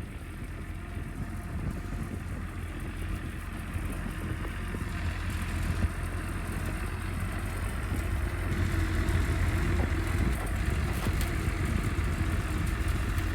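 Engine of the vehicle pulling a dead truck on a chain, running steadily under load and growing gradually louder.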